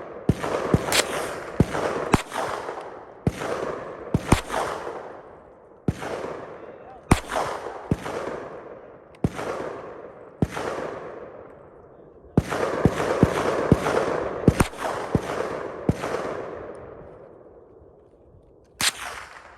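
Gunshots from target shooting: about two dozen shots at irregular intervals, with a quicker string of shots in the middle. Each shot is followed by a long echo that fades over a second or more. A single last shot comes near the end.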